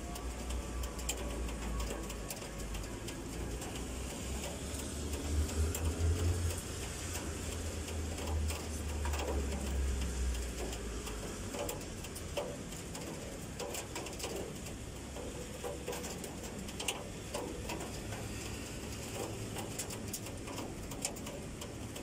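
Typhoon rain, an even hiss with scattered sharp drip ticks. A low rumble runs under it for the first half, swelling around five to six seconds in and dying away about eleven seconds in.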